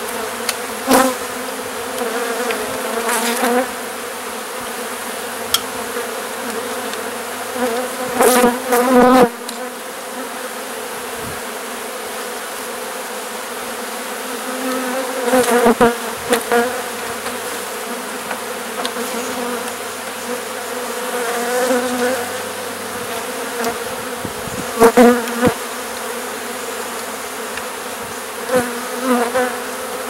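Honey bee swarm buzzing around an open hive box: a steady hum, with single bees flying close by and swelling louder for a moment several times.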